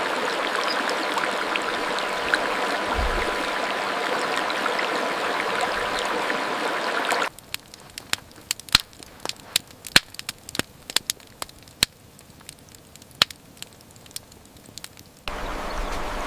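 Stream water rushing steadily, cutting off abruptly after about seven seconds to a quiet stretch of scattered sharp clicks, before the rush of water comes back near the end.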